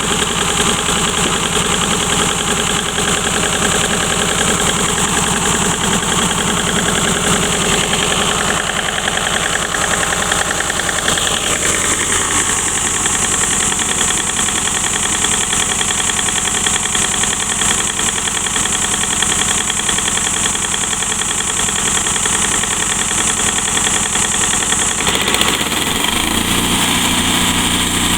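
Woodmizer band sawmill running steadily, its engine going with a continuous high hiss from the band blade cutting a small lusitanica log. The sound shifts about halfway through and its engine note changes again near the end.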